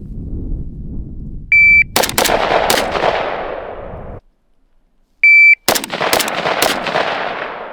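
A shot-timer beep, then three rifle shots from a 5.56 Zastava PAP 85 AK: two close together and a third a moment later, the Mozambique pattern of two to the body and one to the head. After a sudden cut there is a second beep and another string of three shots, each shot ringing out behind it.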